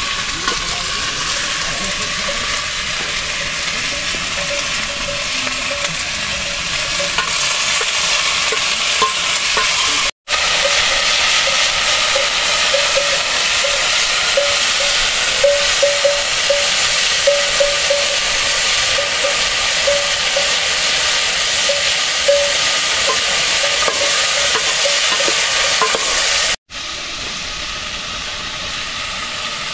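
Potatoes frying in a pan over a wood fire: a steady sizzling hiss with small scattered pops. It cuts out abruptly twice, about ten seconds in and again near the end.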